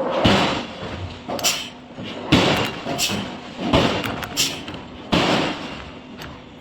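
Heavy industrial impacts and clanks from forging work, about one a second at uneven spacing, several of them with a short burst of hiss.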